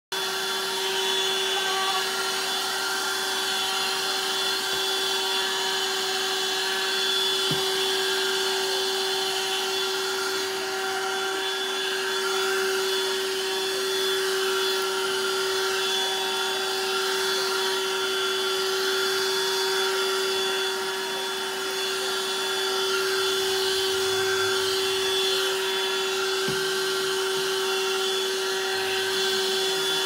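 Cordless handheld vacuum cleaner running steadily on carpet: one constant motor tone over an even airflow hiss.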